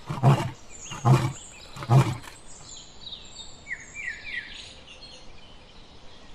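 Lion roaring: three short, deep calls less than a second apart in the first couple of seconds, then dying away. A few short bird chirps follow.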